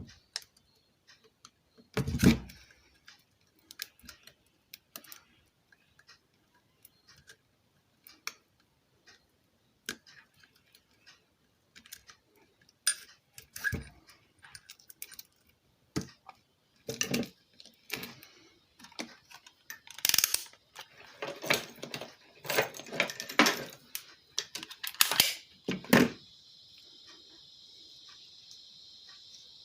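Scattered metallic clicks, taps and clatter of hands and tools working on a ceiling fan's wiring and parts, busier in the last third. Near the end a steady high-pitched hiss sets in.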